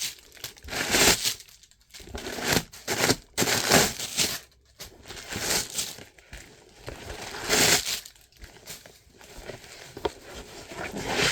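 Crinkly packing stuffing rustling and crumpling in irregular bursts as hands rummage inside a new backpack.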